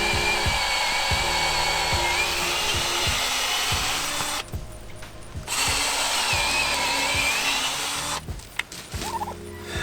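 Power drill boring a hole for a gate hinge connector, running steadily with a wavering whine. It stops for about a second midway, runs again and stops a couple of seconds before the end. Background music with a steady beat plays underneath.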